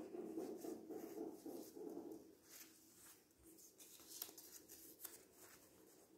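Faint rustling and crackling of pink taffeta fabric being folded into layers and handled, with scattered light crackles. A soft low hum dies away about two seconds in.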